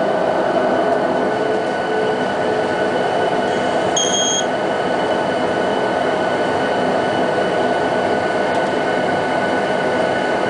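Steady rumble and hiss of a Boeing 737-700 airliner cabin, with a short high beep about four seconds in.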